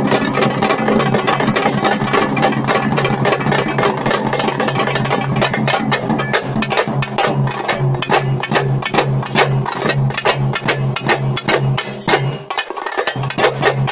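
Thappattam drumming: parai (thappu) frame drums beaten with sticks in a fast, dense rhythm over a large bass drum. The low bass beat drops out for a moment near the end.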